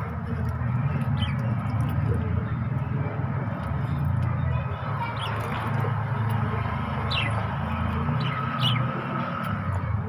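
Budgerigar giving a handful of short, falling chirps, spaced a second or more apart, over a steady low rumble.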